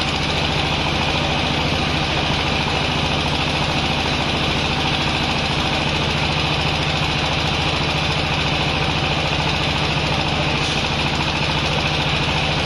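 Baler machine running: a steady low drone with a fast, even pulse under a constant hiss.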